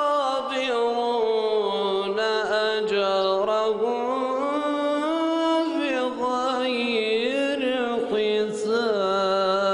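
A man reciting the Quran in the melodic mujawwad style: one long drawn-out line of chant, its pitch turning and wavering in ornaments, with only brief dips for breath.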